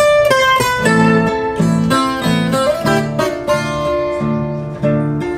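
Two violas caipira, Brazilian ten-string guitars, playing an instrumental sertanejo passage: a plucked melody over low notes repeated in an even rhythm.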